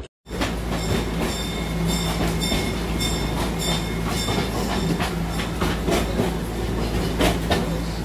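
Wooden passenger train coach running along the track, heard from inside: a steady rumble with the clickety-clack of the wheels and scattered knocks. It starts abruptly just after a brief dropout.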